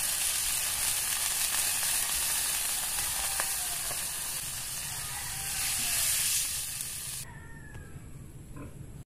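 Sauce poured into a hot wok of sautéing ingredients, which sizzles steadily; the sizzle cuts off abruptly about seven seconds in.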